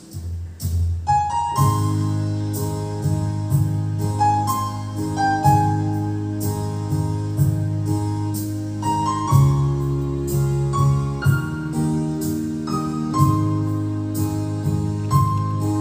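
Electronic arranger keyboard playing a gentle song: a melody over sustained chords and a deep bass line, with a steady rhythmic beat. The full accompaniment comes in about one and a half seconds in.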